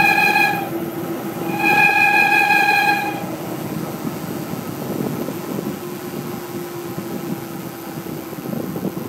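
Wind and road noise of a bicycle coasting fast downhill, rushing over the phone's microphone. A long, high, steady squeal ends just under a second in, and a second one sounds from about one and a half to three seconds in.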